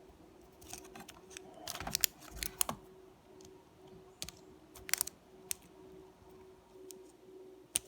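Scattered small plastic clicks and taps as a laptop's LCD screen cable connector is fitted and the panel is handled, over a faint steady hum. The clicks come in a cluster about two seconds in and again around five seconds.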